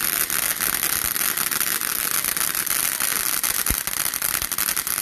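Ground fountain firework spraying sparks: a steady loud hiss with fast, fine crackling throughout.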